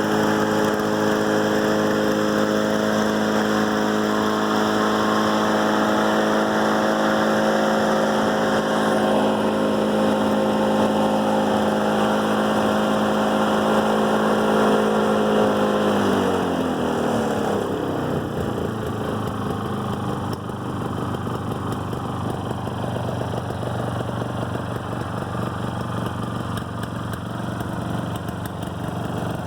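Suzuki two-stroke engine on a Toro 16585, running after a cold start. It holds a steady higher speed, then about halfway through the revs drop over a couple of seconds and it settles into a lower idle.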